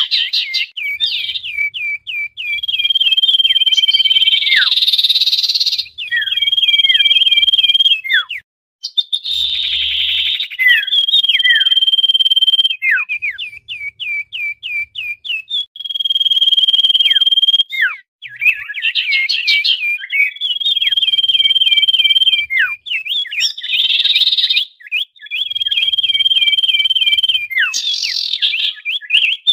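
Common iora calls, noisy and repeated: a long, steady, high whistle, then a quick run of short notes that each sweep downward, the phrase returning every few seconds.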